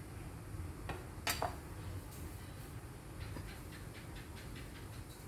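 Cutlery clinking on a plate. Two sharp clinks come about a second in, then a quick run of faint light ticks a few seconds in.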